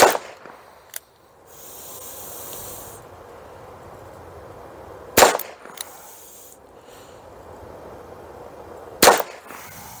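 Ruger Wrangler Bird's Head .22 Long Rifle single-action revolver firing three shots, about four seconds apart, each a sharp crack.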